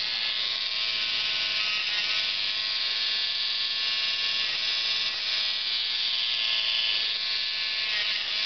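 Cordless Dremel MiniMite rotary tool running steadily with a high whine while its sanding drum grinds a dog's toenails. The pitch shifts slightly every few seconds.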